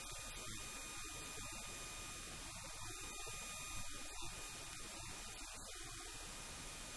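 Steady electrical hum and hiss of the recording's noise floor, with a few faint steady high-pitched tones; no clear voice stands out.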